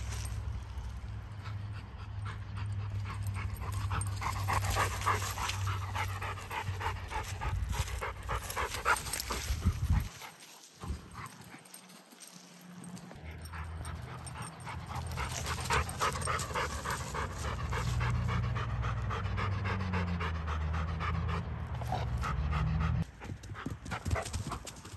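A dog panting rapidly and steadily close to the microphone, with a low rumble underneath.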